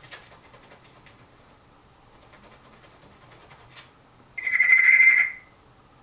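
A single loud, trilling telephone-style ring, about a second long, starting a little over four seconds in.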